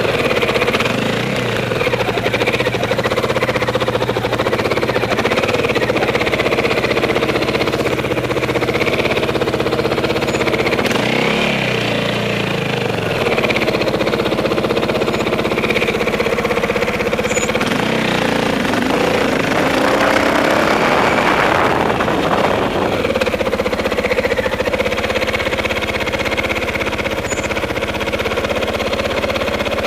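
Dirt bike engine running at low revs, with rises in revs about 11 seconds in and again from about 18 to 23 seconds in.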